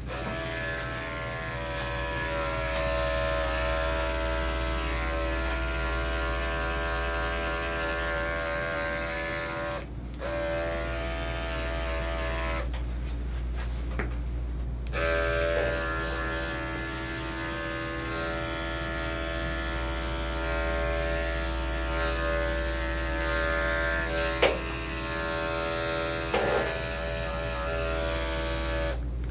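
Electric dog grooming clippers running with a steady buzz as they clip the dog's coat. They stop twice, very briefly about ten seconds in and then for about two seconds a little before halfway, before running on, with a couple of light clicks near the end.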